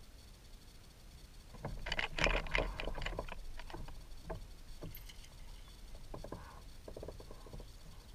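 A quick flurry of small clicks, knocks and rattles from fishing gear being handled in a kayak, loudest a couple of seconds in, then thinning to scattered taps.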